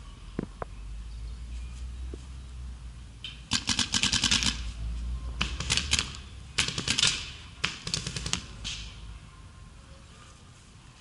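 Paintball markers firing four rapid strings of shots, about ten a second. The strings start a few seconds in and each lasts half a second to a second.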